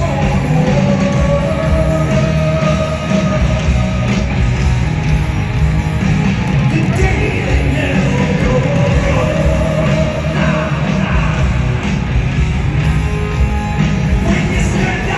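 Live heavy metal band playing loud through a stadium sound system: distorted electric guitars, bass and drums.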